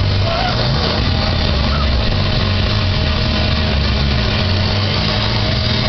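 Steady loud rumble and drone of a spinning thrill ride (the Insanity ride) in motion, its machinery humming under a constant rush of air on the phone's microphone.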